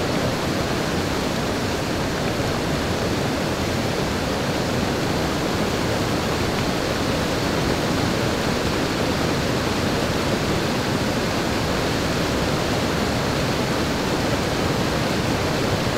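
Steady, loud rushing noise with no distinct events in it.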